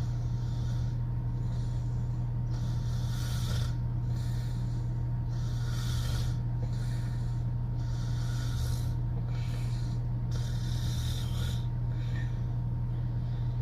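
A sleeping woman snoring through her open mouth: rasping, noisy breaths about every two and a half seconds, over a constant low hum.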